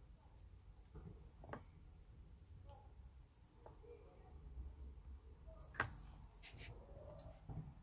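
Near silence: room tone with a faint, rapid high ticking of about four a second, a few soft knocks, and one sharp click near the end.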